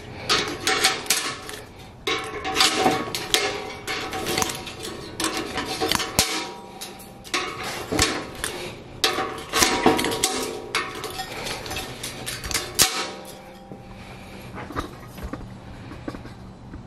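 Steel tie wire being wrapped and twisted around crossing rebar with pliers for a figure-8 (X) tie: scraping and quick, irregular metallic clicks and clinks of wire and pliers on the bars, dying down near the end.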